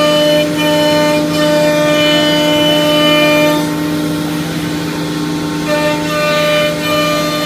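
CNC router spindle running under load as the bit routs panel profiles into MDF door blanks: a steady whine of several fixed pitches over cutting noise. For a couple of seconds around the middle some of the whine drops out and the sound turns rougher and noisier, then the whine returns.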